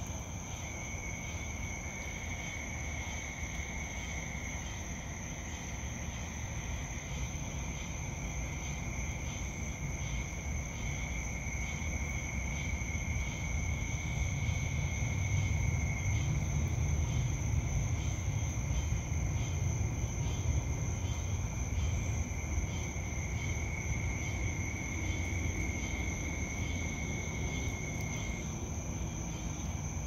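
Night chorus of crickets and other insects. One high, steady trill runs throughout, a lower trill comes and goes in runs of several seconds, and there is a fast, even pulsing chirp. Low background noise underneath grows louder midway and then eases.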